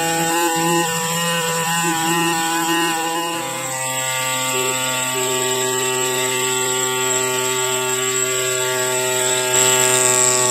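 Pneumatic air scribe buzzing steadily as its stylus chips rock matrix off a fossil crab in a concretion. Its pitch drops a step about three and a half seconds in, then holds.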